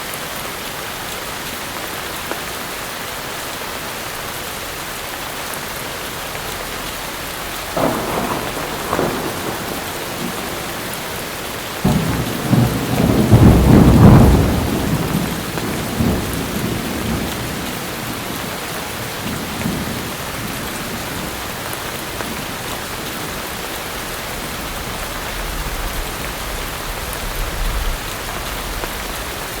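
Heavy rain pouring steadily, with a roll of thunder: crackling about eight seconds in, swelling to a loud rumble about fourteen seconds in and fading over the next few seconds, then a fainter low rumble near the end.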